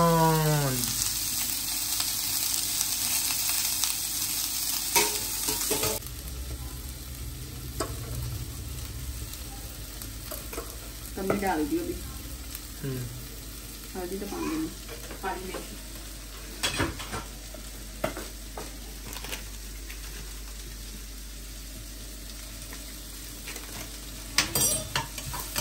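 Food sizzling as it fries in hot oil in a pan, louder for about the first six seconds and then steadier and softer. Occasional clinks and scrapes of a utensil against the pan.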